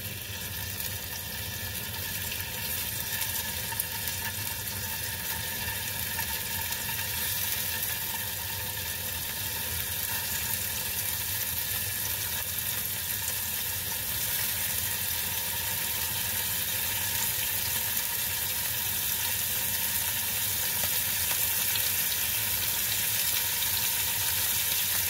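Marinated anchovies sizzling as they are laid one by one into a little hot oil in a frying pan. The steady sizzle grows gradually louder as more pieces go in.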